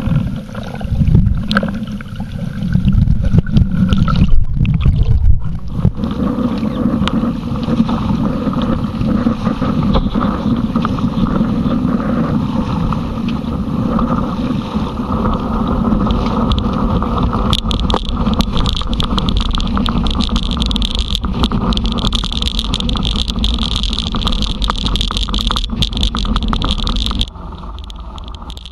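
Wind buffeting the microphone with water rushing and splashing along the hulls of a Hobie Cat catamaran under sail: a loud, steady rumble with gusts in the first few seconds. It gets suddenly quieter about a second before the end.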